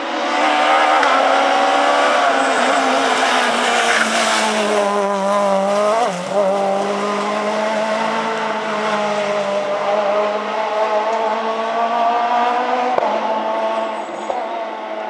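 Renault Clio S1600 rally car's four-cylinder engine running hard at high revs, its pitch sagging and climbing again, with a brief lift about six seconds in.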